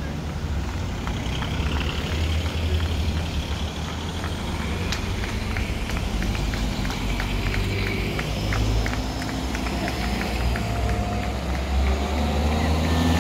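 Engines of cycling team cars running as they creep up a steep street in a convoy, a steady low hum. From about four seconds in to about eleven seconds in, a run of short sharp ticks sounds over it.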